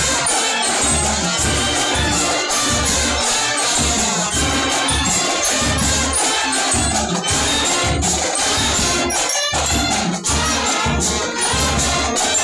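Marching band playing: brass and saxophones over a steady drum beat of about two strokes a second, with a bright jingling percussion layer on top.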